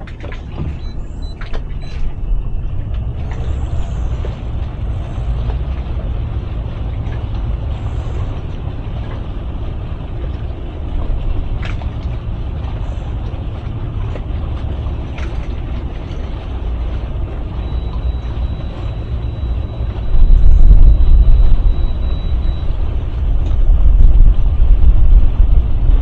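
Towboat's twin outboard motors running under way, mixed with wind rumbling on the microphone. The sound gets louder about 20 s in as the motors push harder, and again a few seconds later. A thin high tone is heard in the middle of this stretch.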